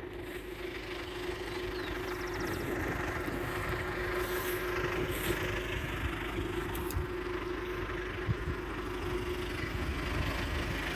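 A motor vehicle running steadily: a constant engine hum over a low rumble, growing a little louder over the first few seconds.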